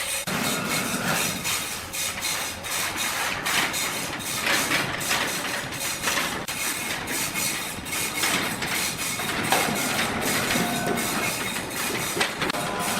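Sawmill machinery running, with a continuous clatter of irregular knocks and rattles.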